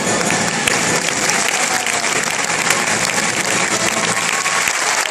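Theatre audience applauding, a dense, steady mass of clapping.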